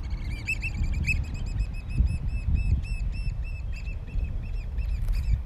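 American oystercatchers piping: a rapid run of loud, repeated piping calls, about four or five a second, fading out near the end. A steady low rumble runs underneath.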